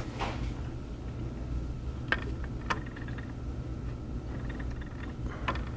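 A steady low hum of bench equipment, with a few sharp light clicks of metal tweezers against the tablet's circuit board, about two seconds in, just after, and near the end.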